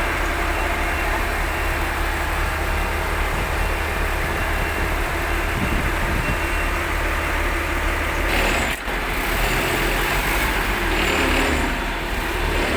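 Heavy vehicle engine running steadily, with a brief break about 9 seconds in.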